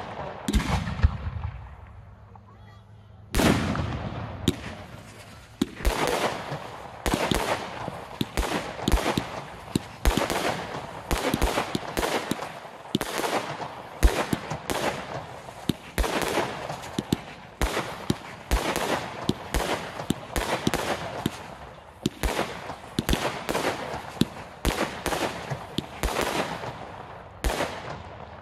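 Fireworks display: aerial shells bursting in a rapid barrage of sharp bangs, about two a second. There is a brief lull after the first few bangs.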